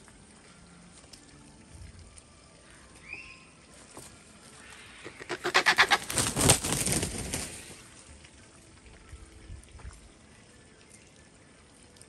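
Griffon vultures scuffling on rocks, with a loud burst of heavy wing-flapping and rapid rattling noise lasting about two seconds, midway.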